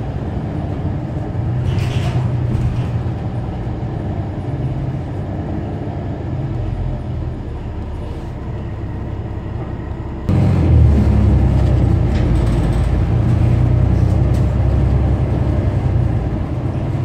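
New Flyer XD40 Xcelsior diesel city bus running, a steady low engine rumble with road noise and a brief hiss about two seconds in. About ten seconds in the rumble suddenly gets louder.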